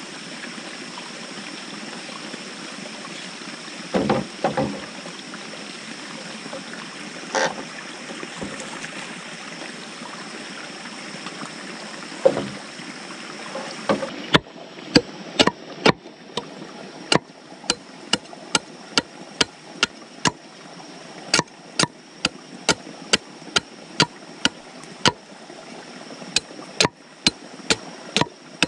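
Steady running-water noise of a stream with a few knocks as bamboo poles are handled. Then, about halfway in, a machete chopping into a log, sharp strokes about two a second.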